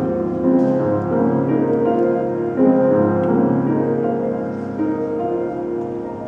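A piano trio of violin, cello and grand piano playing a piece in Argentine folk-dance style, with the piano to the fore. The music gets gradually quieter over the last few seconds.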